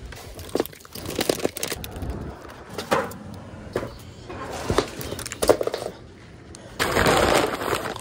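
Brown paper grocery bags and plastic snack packaging rustling and crinkling as groceries are unpacked by hand, with light knocks as items are set down. A louder burst of crinkling comes near the end.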